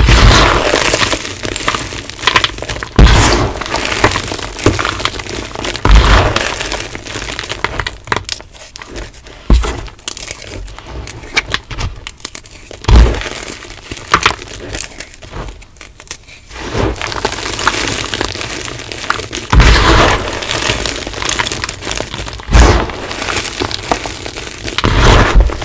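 Blocks of hard, crunchy dyed gym chalk being crushed and crumbled close to the microphone: sharp cracks every few seconds as pieces break, with gritty crumbling in between.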